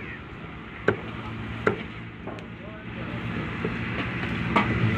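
A cleaver chopping fish on a wooden block: a sharp chop about a second in, another shortly after, and one more near the end. A low engine hum builds up in the background over the last couple of seconds.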